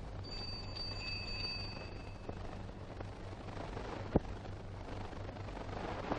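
Hiss and mains hum of an old film soundtrack. Near the start a high steady tone holds for about two seconds, and about four seconds in there is a single sharp click.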